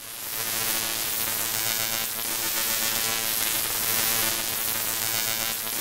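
Synthetic audio from a Max/MSP Jitter patch: a sound sample written into a square matrix, rotated with jit.rota in wrap mode and played back on a loop, giving a steady drone of many stacked tones with a hiss on top.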